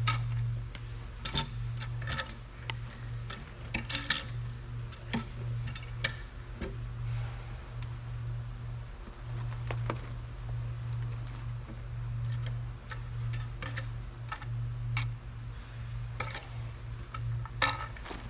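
Tractor diesel engine running steadily, with scattered sharp clicks and knocks over it.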